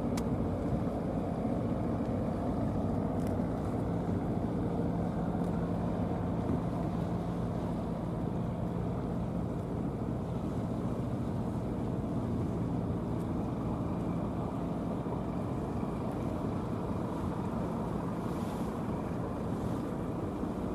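Steady low engine drone with a faint hum, under a constant haze of wind and water noise.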